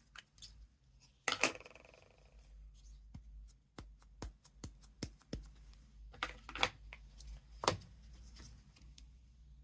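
Desktop craft-stamping handling sounds: scattered sharp clicks and taps of a clear stamp on its acrylic block being inked on an ink pad and pressed onto card, with a few short rustles of paper. The loudest knocks come about a second and a half in and near the end.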